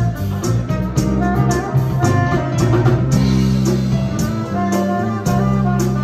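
A live R&B band playing an instrumental groove: electric bass, electric keyboard and a drum kit, with cymbal strokes keeping a steady beat.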